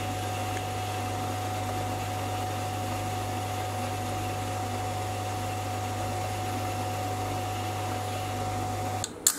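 Sieg C3 7x14 mini metal lathe running at a steady speed with a constant hum and a thin steady whine, taking a light finishing cut with a high-speed steel tool. The motor stops suddenly about nine seconds in.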